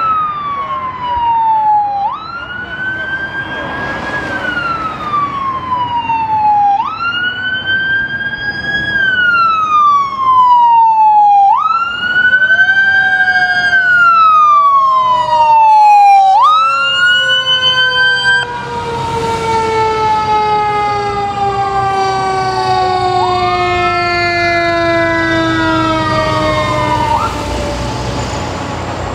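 Fire truck sirens on passing fire engines: a wail that rises quickly and falls slowly, repeating about every four to five seconds, joined partway through by a second siren's long, slowly falling tone. In the second half several sirens overlap.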